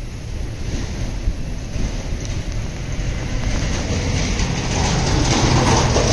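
Engine noise of a motor vehicle that grows louder toward the end, over wind noise on the microphone.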